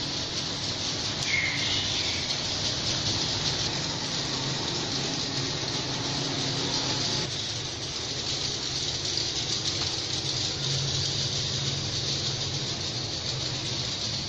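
Swiftlet calling sound used as a lure: a dense, continuous chatter of many swiftlets, with a low steady hum underneath.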